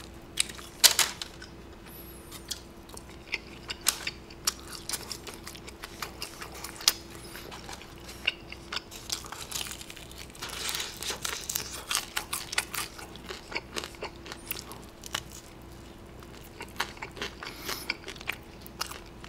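Close-up biting, crunching and chewing of thin-battered fried chicken: scattered sharp crackles, with the densest run of bites about ten seconds in. A faint steady hum underneath.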